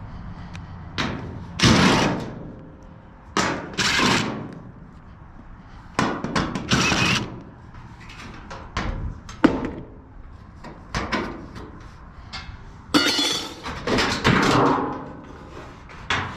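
Sheet-metal cabinet of a washer or dryer being taken apart by hand: a run of irregular metal thunks, clanks and scraping as the back panel is worked loose and moved.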